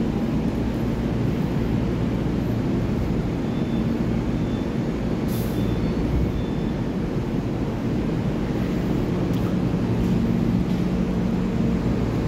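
Taiwan Railway EMU3000 electric multiple unit at an underground platform: a steady low rumble with a motor hum, the train starting to pull out near the end. A brief hiss about five seconds in.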